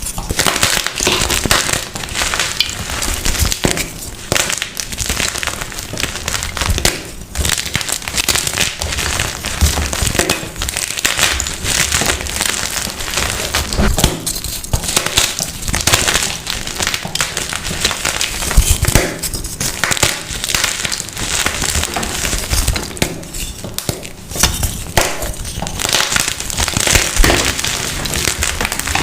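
Coloured reformed gym chalk blocks being crushed, with crisp crunching and crumbling crackles that keep on in quick, dense succession.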